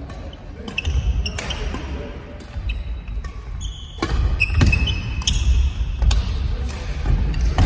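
Badminton rally: rackets striking the shuttlecock with sharp cracks about once a second, over the thud of players' feet landing on a wooden gym floor, with brief sneaker squeaks in the middle. The sounds ring on in a large hall.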